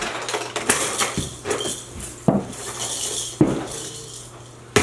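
Plastic toys being thrown and dropped onto the floor: about four thumps and clatters spread over a few seconds, with rustling between them.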